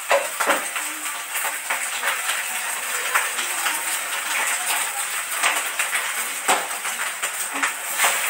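Fried rice sizzling steadily in a frying pan, with a spatula knocking and scraping against the pan now and then.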